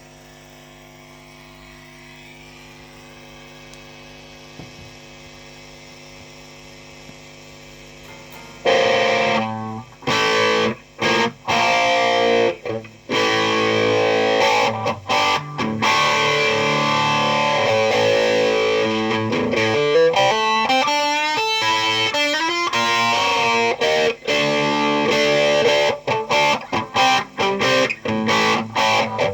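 Steady amplifier hum for about the first eight seconds, then a heavily distorted electric guitar played loud through a high-gain amp and speaker cabinet. The playing is chords and riffs broken by short stops, with a fast run of notes about two-thirds of the way through.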